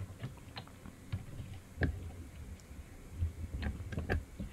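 Scattered light clicks and knocks of 3D-printed plastic chassis parts as the assembled robot base and its suspension are worked by hand, the clearest about two seconds in and a few more near the end.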